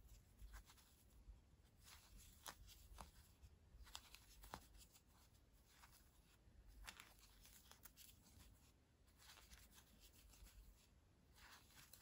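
Near silence, with faint scattered clicks and rustles from a metal crochet hook and yarn being worked by hand.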